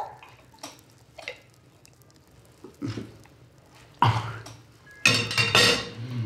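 A spoon clicks lightly against a dish three times, then a young man with cerebral palsy makes throaty, coughing sounds as he is spoon-fed puree, loudest near the end.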